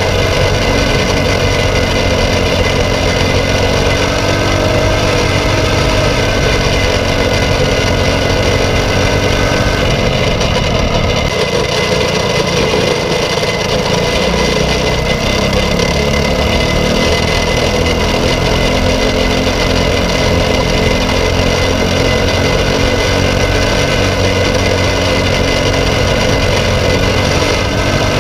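Briggs & Stratton LO206 single-cylinder four-stroke kart engine running under race load, heard from on board. About ten seconds in its pitch drops as the kart slows for a corner, then rises again as it accelerates out.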